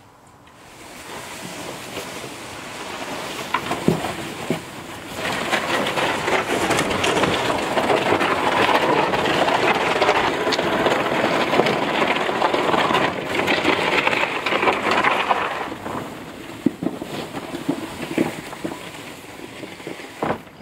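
Wooden-framed chicken tractor being dragged across grass and gravel: a continuous scraping rush that builds over the first few seconds, is loudest through the middle, and eases off a few seconds before the end, with scattered knocks.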